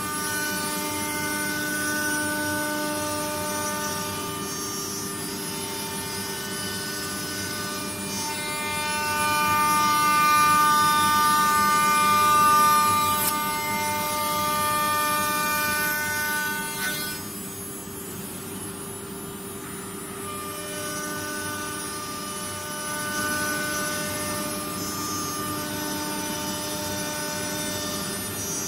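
CNC router spindle running with a steady whine of several held tones over a cutting hiss as the bit works through wood. The cut grows louder about a third of the way in, drops off abruptly a little past halfway, and picks up again soon after.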